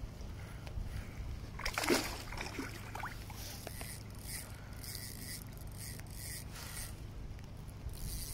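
Wind rumbling on the microphone, with a splash of water about two seconds in from a hooked trout swirling at the surface by the bank.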